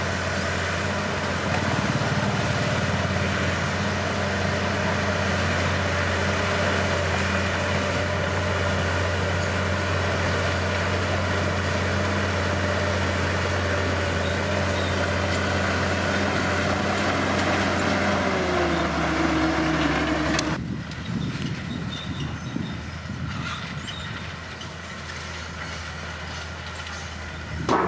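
Bulldozer's diesel engine running steadily under load, then dropping in pitch about 18 seconds in. It cuts off abruptly about 20 seconds in to a quieter engine sound.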